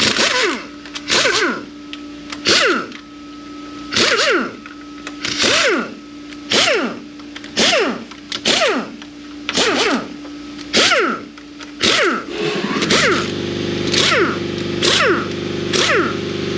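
Air gun run in short bursts, about fourteen quick spin-ups and spin-downs each with a falling whine, as the valve body bolts of a Ford AOD transmission are spun out. A steady low hum comes in about three-quarters of the way through.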